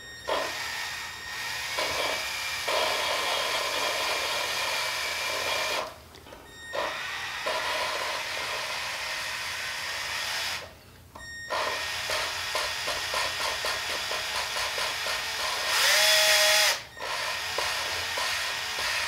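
Cordless drill running in short bursts to spin a cylinder-head valve through a piece of sprinkler tubing, with valve lapping compound grinding between the valve face and its seat. The grinding is the sound wanted when lapping the valves to seal in the head. It stops twice briefly, and near the end the drill whines louder for about a second.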